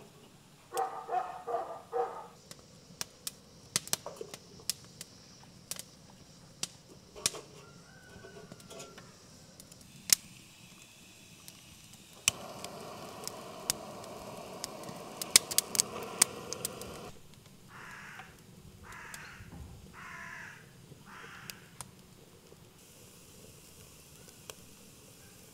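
A handheld butane torch hisses steadily for about five seconds midway, lighting kindling in a small tin-can wood stove, with sharp clicks around it. Before it come scattered clicks and knocks of twigs being set in the stove, and a few dog barks near the start. After it a crow caws about four times.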